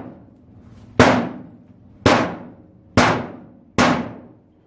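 Four stabs of a Buck and Bear OTF knife into the sheet-metal panel of a clothes dryer, about one a second. Each is a sharp metallic clang that rings and dies away. The blade punches only a tiny hole and shears its tip off.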